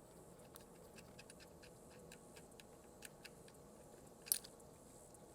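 Ratchet with a 10 mm socket clicking faintly in quick runs of ticks as a bolt is backed out, with one louder clack a little over four seconds in.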